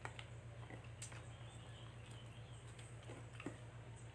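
Quiet eating sounds: a few faint, scattered clicks and smacks from hand-eating, over a steady low hum.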